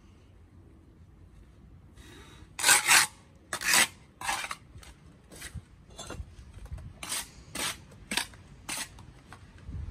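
Steel bricklaying trowel scraping wet mortar against a concrete block: about two and a half seconds in, a quick run of about ten short scrapes begins, the first two the loudest.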